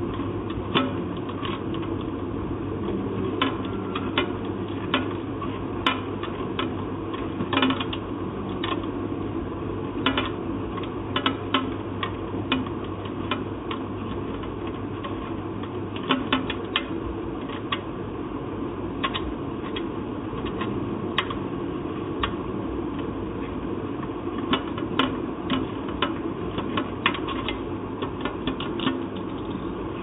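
Irregular sharp metallic clicks and taps from a screwdriver working in the exposed mechanism of a manual typewriter, with parts of the mechanism clinking, over a steady background hum.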